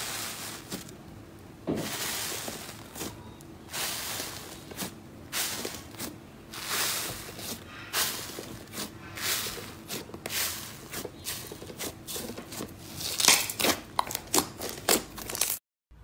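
Fingers pressing and squeezing foamy, bubbly slime, giving a run of irregular crackles and squelches. The crackles are loudest in a cluster near the end, then stop suddenly.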